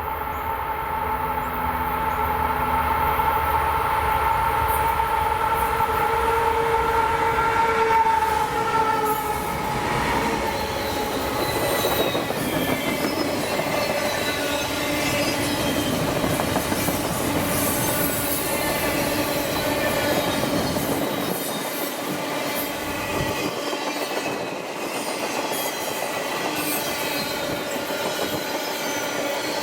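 A passing train. For the first nine seconds or so a locomotive's multi-note horn sounds, its pitch dipping slightly as it goes by. The train then rolls past with wheel squeal and rail clatter.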